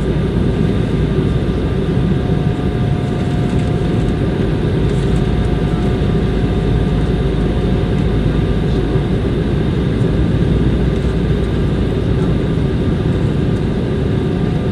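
Steady rumble and rushing of an Airbus A320's jet engines and airflow heard inside the cabin, with a few faint steady whining tones over it and no change in level.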